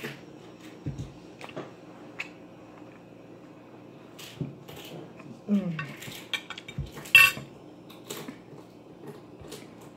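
A metal spoon clinking and scraping against a plate during a meal, in scattered irregular clicks. The loudest is a ringing clink about seven seconds in.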